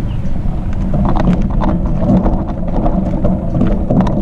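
Bicycle tyres rolling over loose gravel: a steady low rumble with scattered crackling ticks of stones under the wheels.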